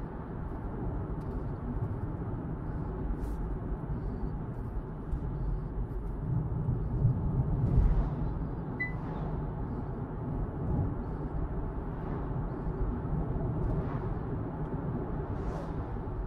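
Road and tyre noise inside the cabin of a Hyundai Ioniq 6 electric car at highway speed, a steady low rumble that swells about halfway through as a truck passes close alongside.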